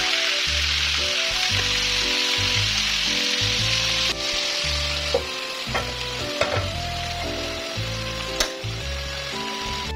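Pieces of skipjack tuna frying in hot oil in a wok, a steady sizzle that gets quieter about four seconds in. A few sharp clicks and knocks follow, among them a gas burner knob being turned near the end. Background music plays underneath.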